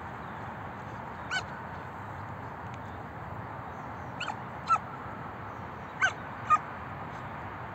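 A 5½-month-old Belgian Malinois puppy giving about five short, high-pitched barks. One comes early, then the rest mostly in pairs.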